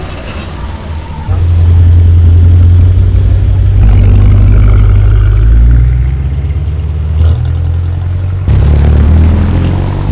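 A car leaving with a loud, deep rumble that sets in suddenly about a second in, shifts in pitch, drops back and returns sharply near the end.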